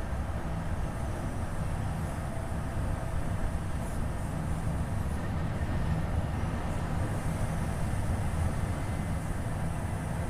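Volvo FH 500 truck on the move: its 13-litre straight-six diesel running at a steady low drone with road noise, no gear changes or revving.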